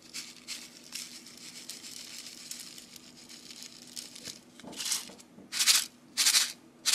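Foil candy-topping packet crinkling while small sugar sprinkles are shaken out of it onto soft candy slime. A steady rustle over the first few seconds gives way near the end to three or four short, loud crinkles of the packet.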